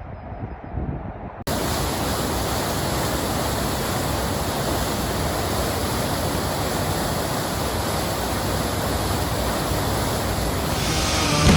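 Steady rush of water, starting abruptly about a second and a half in and holding even throughout. Rock music fades in near the end.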